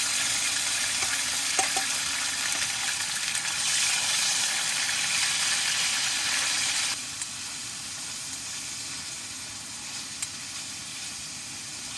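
Marinated shredded pork sizzling in hot oil in a pan, as a loud steady hiss with a few light clicks of stirring. The sizzle drops noticeably about seven seconds in.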